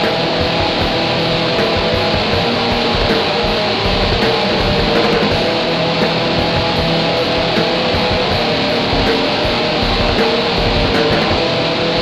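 Raw lo-fi black metal: distorted electric guitars in a dense, unbroken wall of sound that keeps the same level throughout.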